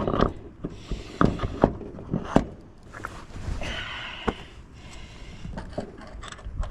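Sharp knocks and clicks of a riding mower's front wheel assembly being fitted back onto its freshly greased axle, several in a row with the loudest about two and a half seconds in.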